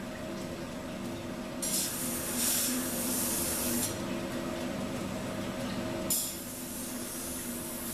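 Belt grinder running steadily, with a steel knife blade pressed against the abrasive belt twice, each time a high grinding sound lasting a couple of seconds: the first about one and a half seconds in, the second starting about six seconds in. The blade is being ground back to blank steel to remove the heat-treatment scale before etching.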